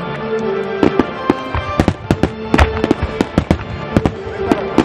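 Aerial firework shells bursting in quick succession, several sharp bangs a second, some much louder than others, with music playing underneath.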